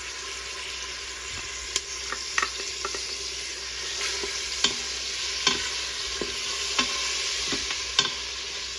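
Tomato paste and spices frying in oil in an Instant Pot's inner pot on sauté mode, a steady sizzle, while a utensil stirs it, knocking and scraping against the pot every second or so.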